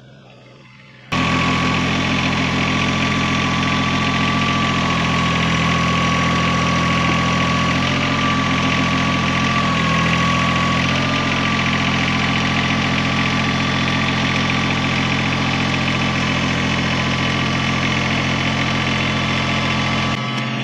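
An engine running steadily at idle; it cuts in abruptly about a second in and cuts out just before the end.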